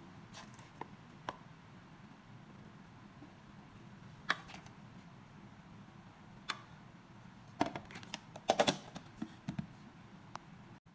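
Cookware and utensils handled in a kitchen: scattered light clicks and knocks over a low steady hum, with a quick cluster of knocks near the end.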